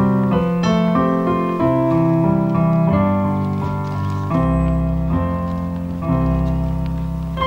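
Solo piano playing a melody over chords, the notes changing about every half second; deep bass notes come in about four and a half seconds in and again about six seconds in.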